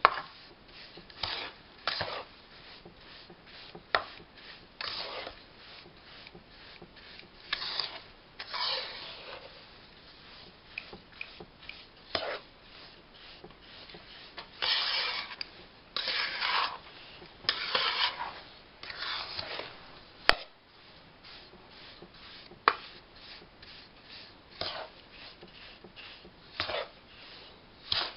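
A metal spoon scrapes and stirs through a dry, crumbly mix of roasted besan and powdered sugar in a metal kadhai, in irregular strokes against the pan. There are a few sharp clicks, the loudest about two-thirds of the way through.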